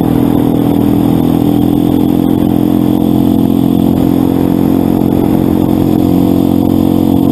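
Motorcycle engine running steadily at road speed, heard from the moving bike itself, with a constant rush of noise over the engine's hum.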